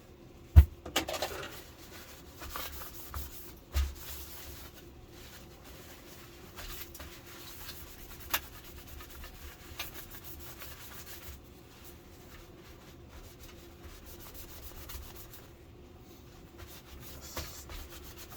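Cloth rubbing and wiping burnt dirt off the inside of an LCD television during a backlight repair. A sharp click comes about half a second in, with a knock near 4 s and another click around 8 s.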